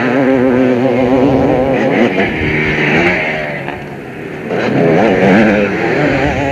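Motocross motorcycle engines revving hard under wavering throttle, fading to a low about four seconds in and then rising again as bikes come closer.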